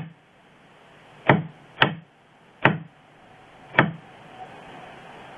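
Four sharp metallic clicks from an electric door strike's latch, irregularly spaced over about two and a half seconds.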